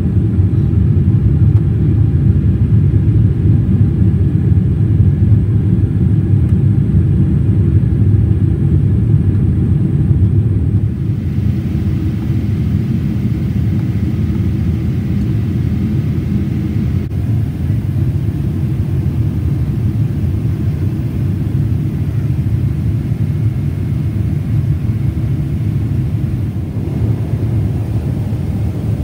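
Steady cabin noise of a Boeing 777-300ER in climb, a deep rumble from its GE90 engines and the airflow, heard from a seat near the rear. About eleven seconds in the rumble drops a little and a brighter hiss comes up.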